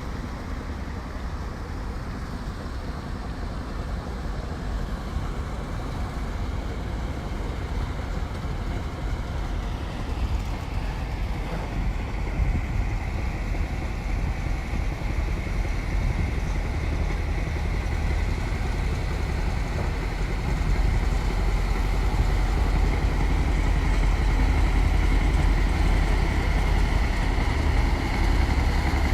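A motor engine running steadily with a low rumble, growing louder after about twenty seconds.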